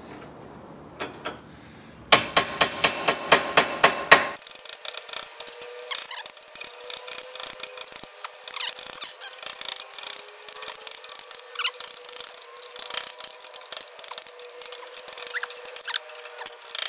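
Cast-iron bench vise being cranked to press a worn bushing out of a VW Beetle pedal cluster. About two seconds in there is a quick run of sharp metallic clicks, about five a second. From about four seconds in comes a steady squeal with creaks and ticks as the vise tightens and forces the bushing out.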